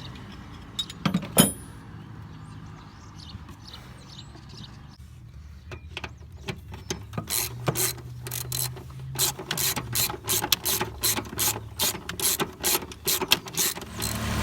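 Socket ratchet clicking in quick strokes, about three clicks a second in the second half, as a motor mount bolt is run down; a single sharp metal knock about a second in.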